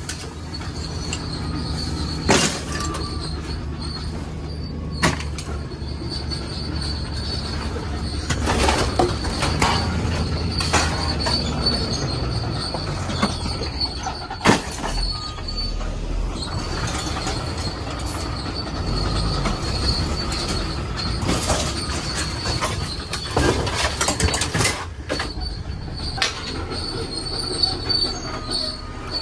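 A vehicle engine running with a steady low drone and a steady high-pitched whine, with scattered clunks and rattles throughout.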